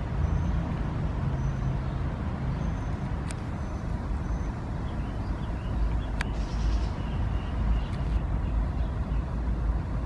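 Steady low outdoor traffic rumble, with a low hum early on. A few sharp clicks and faint short high chirps, about once a second, sound over it in the first half.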